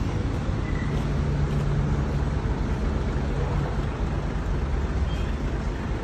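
Truck engine running steadily at idle, a low even hum.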